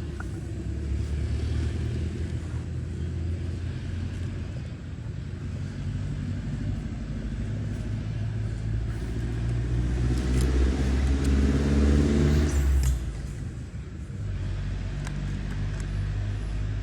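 A motor vehicle's engine running with a low hum that builds to its loudest about ten to thirteen seconds in, then drops off suddenly and carries on more quietly.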